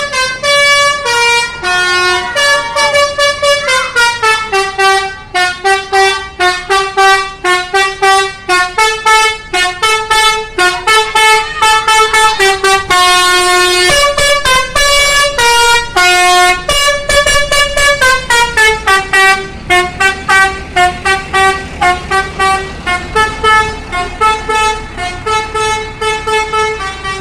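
Indonesian telolet bus horn, a multi-tone air horn set played by hand as a fast melody. Short stepped notes come several a second, with a few longer held notes midway through.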